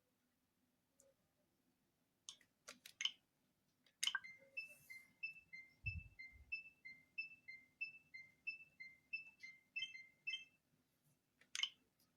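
Nintendo Switch menu sounds, faint: a few sharp clicks, then a rapid run of short two-note rising blips, about three a second for some six seconds, as the console's internet settings are worked through, and one more click near the end.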